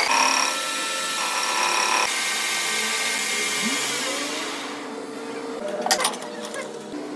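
Machine-shop power tools working billet steel: a steady whine over a hiss of cutting noise. It changes abruptly about two seconds in and thins out near five seconds, with a sharp knock at about six seconds.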